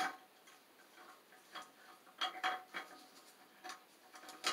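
Light, scattered clicks and taps of a toilet's plastic flush lever arm being handled against the ceramic tank and its fittings during removal, about half a dozen small knocks.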